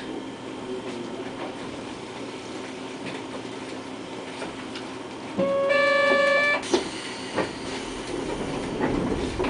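Streetcar running along street track with a steady low rumble. About five and a half seconds in, a loud, steady, single-pitched horn sounds for just over a second and cuts off sharply with a click.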